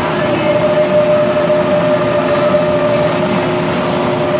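Bridgeport milling machine running with an angle head, drilling into 17-4 stainless steel through a bronze guide bushing: a steady whine over a continuous mechanical rumble.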